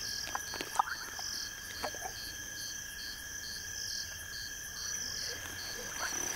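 Night insects trilling steadily, several high continuous tones with a pulsing chirp about two to three times a second. A few short sharp clicks and squeaks stand out in the first two seconds.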